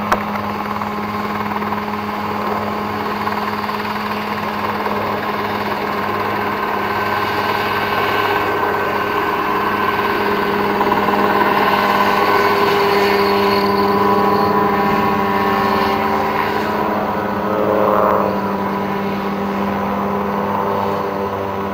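Mosquito ultralight helicopter running: a steady engine-and-rotor drone that grows louder about halfway through, then eases off a little.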